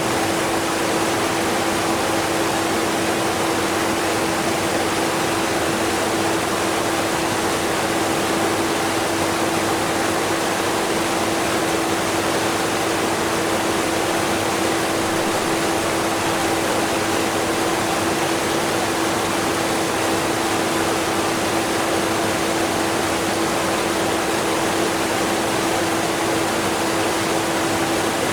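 Strong waterfall rushing steadily, mixed with a vacuum cleaner running underneath, which is heard as a steady hum within the water noise.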